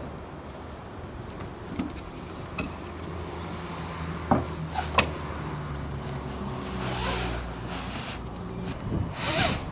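A large fireproofing membrane sheet rustling and crackling as it is unrolled and handled, with swells of rustling near the end, over a steady low hum. Two sharp knocks come about four and five seconds in.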